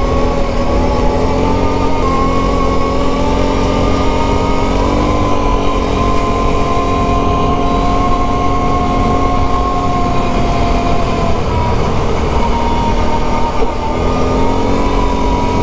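Can-Am Renegade 1000 quad's Rotax V-twin engine running under way on a dirt road over a steady rushing noise. The engine note climbs about five seconds in and holds, eases off around eleven seconds, then picks up again near the end.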